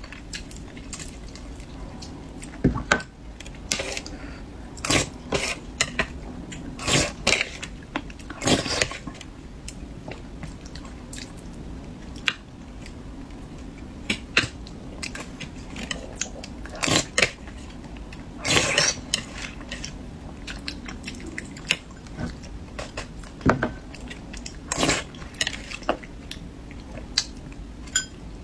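Close-miked eating: chewing and biting, with cutlery clinking against a dish in irregular short bursts.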